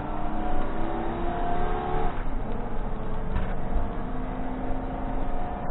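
Engine and road noise of a 2001 Winnebago Adventurer motorhome on a Ford F53 chassis, heard from inside the cab while driving. The engine note climbs, drops back about two seconds in, and climbs again.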